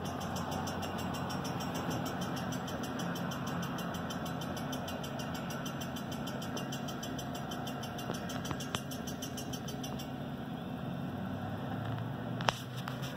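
Car engine idling steadily, heard from inside the car's cabin, with a single sharp click near the end.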